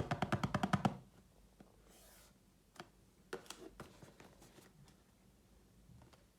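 Unboxing handling of a headphone box and packaging: a fast run of about a dozen sharp clicks in the first second, then a soft rustle and scattered small clicks and taps.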